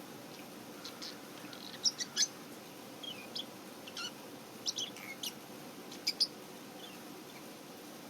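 Pet lovebirds chirping: short, high chirps coming irregularly, about a dozen in all, some in quick pairs.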